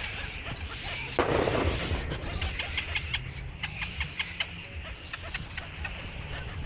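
Birds giving rapid short chirps over a steady low rumble, with a sudden thump about a second in.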